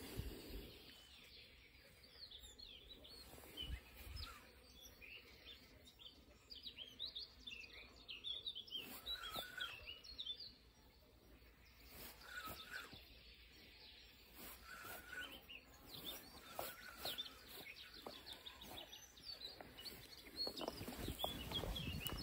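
Songbirds singing: many short chirps and trills from several small birds, fairly faint, with a few soft clicks and rustles mixed in.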